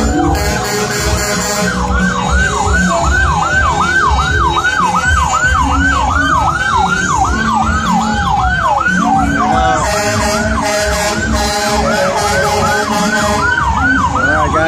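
Emergency vehicle siren. It starts as a slower wail and switches about two seconds in to a fast yelp, its pitch sweeping up and down about two to three times a second.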